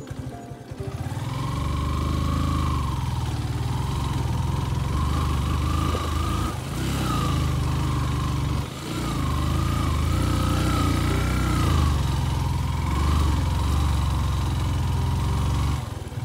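Motorcycle engine running under way on a dirt track, its note rising and falling with the throttle and easing off briefly twice midway.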